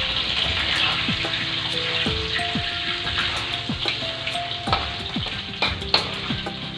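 Shredded, pre-boiled chicken breast sizzling in hot oil in a wok as it is stir-fried, with a metal spatula scraping and clinking against the pan a few times in the second half. Background music plays underneath.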